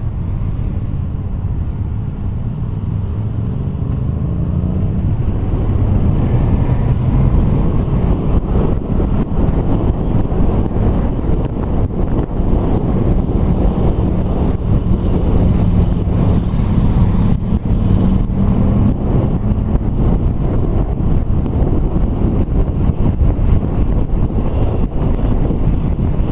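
Motorcycle engine running under the rider as it rides in traffic, picking up speed over the first few seconds and then cruising steadily, mixed with wind rush on the bike-mounted microphone.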